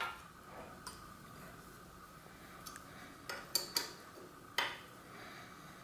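Faint metallic clicks and clinks of a hex key turning in the handlebar stem's faceplate bolts as they are tightened. The clicks are scattered, with the loudest few coming past the three-second mark.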